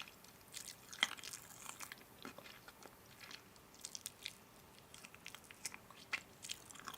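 A person chewing and biting food close to the microphone: faint, irregular soft crunches and mouth clicks.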